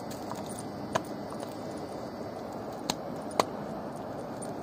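Dog gnawing a bone held between its front paws, with three sharp cracks of the bone under its teeth: about one second in, then twice close together near three seconds, the last the loudest. A steady background hiss runs underneath.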